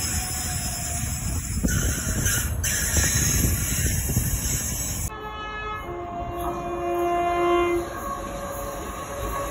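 Freight train of enclosed car-carrier wagons rolling past with a steady rushing rumble. After a cut about five seconds in, an approaching train sounds its two-tone horn: a short higher note, then a longer, louder lower note, for about two and a half seconds.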